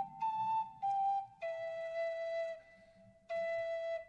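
Slow flute melody of long held notes, stepping down in pitch, with a short pause about three seconds in.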